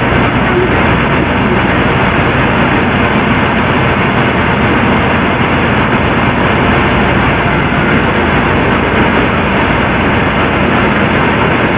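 Loud, steady static-like hiss that stays the same throughout, with no tones or voices in it.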